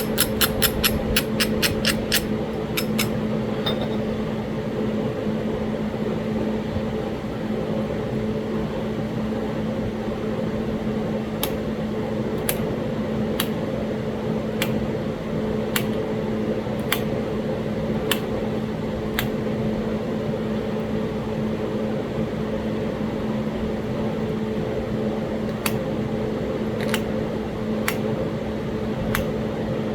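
Sharp clicks of Talahata quartzite being worked into a biface. About a dozen come in a quick run in the first three seconds, then single clicks about once a second. Under them runs a steady mechanical hum with two low tones, like a fan or air conditioner.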